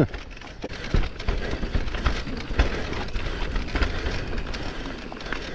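Electric mountain bike descending a narrow dirt trail: continuous tyre noise on the ground with frequent irregular knocks and rattles from the bike, a heavier jolt about a second in.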